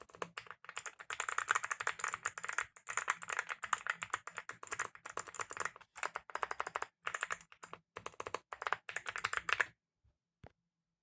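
Fast typing on a Leobog HI75 mechanical keyboard fitted with lubed Kailh Box Summer clicky switches: a rapid, dense stream of crisp key clicks that stops abruptly near the end, followed by one lone click.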